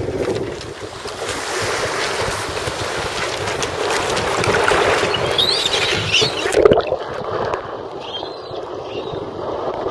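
Small waves splashing and sloshing in shallow water against a catamaran's hulls, with wind on the microphone.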